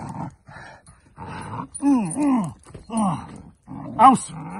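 Young dog growling and barking while biting and tugging at a handler's arm in bite training: first a run of rough growls, then several short barks that drop in pitch, the loudest near the end.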